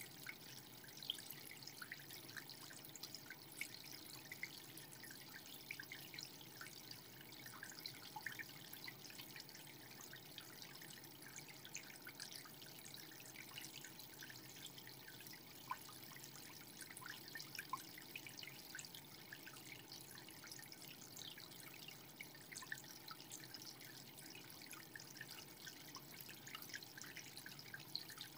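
Faint trickling and dripping of saltwater aquarium water, with many small scattered ticks and pops.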